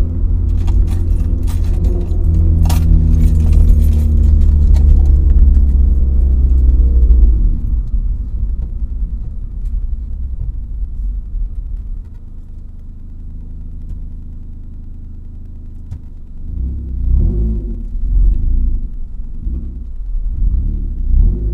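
Honda CR-Z's 1.5-litre four-cylinder engine through a custom direct trumpet muffler, heard from inside the cabin. It drones loudly under power for about seven seconds, drops to a quieter steady run, then gives several short surges of throttle near the end.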